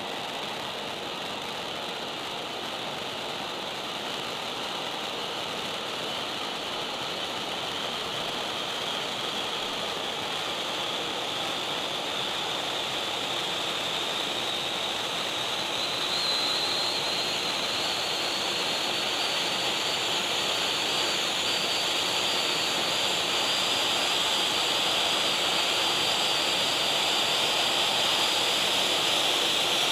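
Celtic Fireworks Glacier Rising conic fountain spraying sparks with a steady rushing hiss that grows gradually louder and edges slightly higher in pitch.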